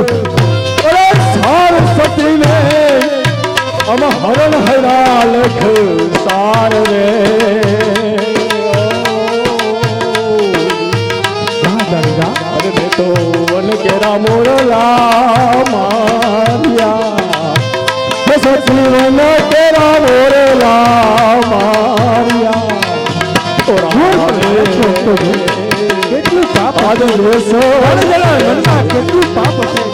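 Live folk-theatre music: a woman singing into a microphone over a steady hand-drum rhythm and accompanying melody.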